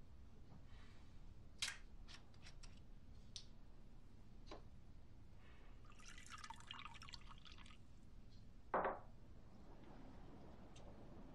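Water poured from a glass bottle into a drinking glass for about two seconds, faint, with light glass clinks before it and a short thump as the bottle is set down on the counter.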